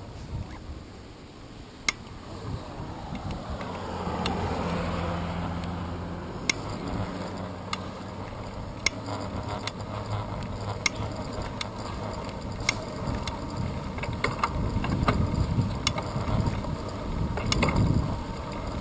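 Bicycle riding on a paved road, heard from a camera on the handlebars: freewheel ticking and scattered sharp clicks as the bike and mount jolt, over a steady rumble of road noise that grows louder near the end.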